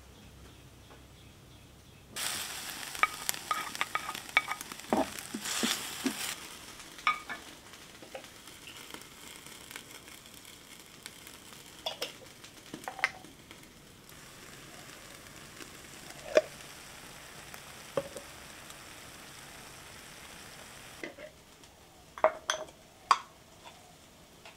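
Food sizzling in hot oil in an earthenware pan, starting suddenly about two seconds in and loudest for the first few seconds, then settling to a steady softer sizzle as it is stirred, with sharp knocks of the wooden spoon against the pan. The sizzling stops near the end, leaving a few more knocks.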